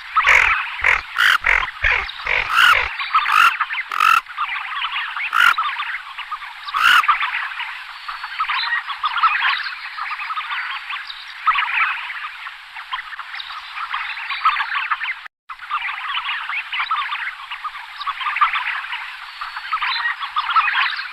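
A dense, continuous chorus of many overlapping animal calls, with a run of sharp clicks or knocks in the first few seconds. The chorus breaks off for an instant about fifteen seconds in.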